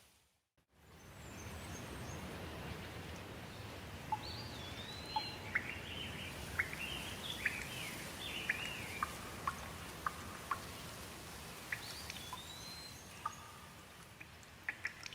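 Steady rain with a bird singing whistled phrases that rise and fall, from about four seconds in and again briefly later, over a few short chirps. The sound drops out for a moment at the very start, and a few sharp drips tick near the end.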